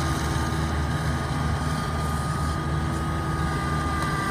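Kubota crawler rice combine harvester's engine running steadily as the machine crawls forward, with a steady high whine over the low engine drone.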